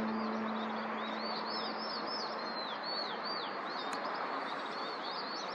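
Small songbirds chirping outdoors: many short rising-and-falling chirps in quick succession over a steady background hiss. A held music chord fades out in the first half second.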